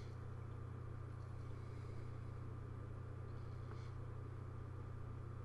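A steady low hum with faint hiss, unchanging throughout, under a pause in the narration; no speech.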